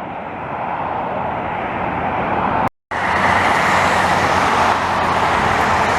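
Steady roar of highway traffic, loud enough to drown out landing aircraft, briefly cut to silence about three seconds in before resuming slightly louder.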